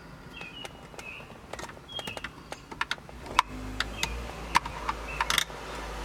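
Irregular sharp plastic clicks and taps as wiring connectors and interior trim are pried loose with a flathead screwdriver. A low rumble comes in about halfway through.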